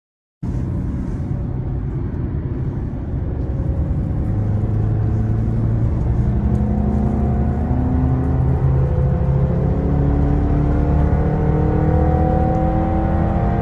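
Car engine running under a long, gradual acceleration, its pitch climbing slowly and evenly over a low drone. It cuts in suddenly about half a second in.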